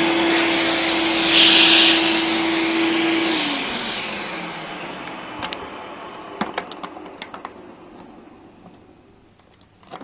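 A 1998 Hoover Turbopower 2 U2090 upright vacuum cleaner with a 900-watt motor runs with a steady hum, and a louder rush of air comes in about a second in. A little over three seconds in it is switched off: the hum slides down in pitch and the motor winds down over several seconds. Scattered light clicks and knocks follow.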